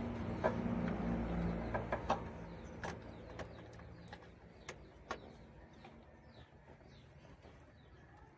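A vehicle engine running with a low hum that fades away over the first few seconds, with a few scattered clicks. Birds chirp faintly after it has died down.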